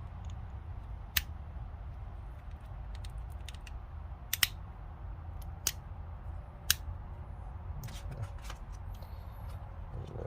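Several sharp metal clicks, single ones spread a second or more apart and a quick run of lighter ones near the end, from pin-free locking impact U-joint adapters being handled and worked in and out of their locked position.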